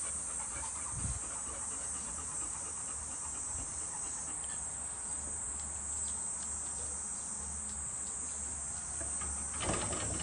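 Steady high-pitched chirring of insects in the background. Near the end a brief shuffling noise as the golden retrievers get up and move off across the concrete.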